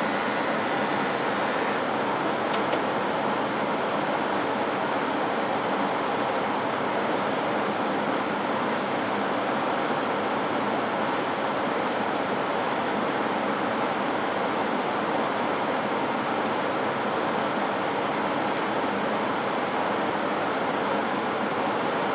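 Steady rushing noise of a laboratory biosafety cabinet's blower fan moving air. A fainter higher hiss stops about two seconds in, followed by a single click.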